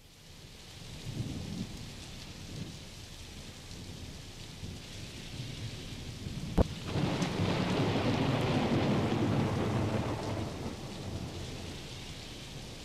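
Steady rain fading in, then a sharp thunder crack about six and a half seconds in followed by a long rolling rumble that dies back to the rain.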